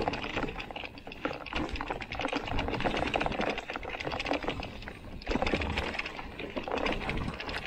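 Canyon Neuron:ON electric mountain bike rolling fast down a dirt forest trail: tyres crunching over dirt and roots with a dense, rapid rattle of the bike's parts over the bumps, swelling and dropping as the ground changes.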